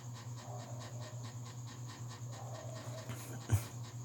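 Faint background noise: a steady low hum under a rapid, evenly repeating ticking, with a single sharp click about three and a half seconds in.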